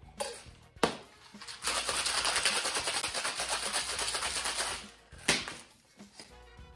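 Two stainless steel Boston shaker tins knocked together to seal, then shaken hard for about three seconds with ice rattling rapidly inside. A single sharp knock about five seconds in.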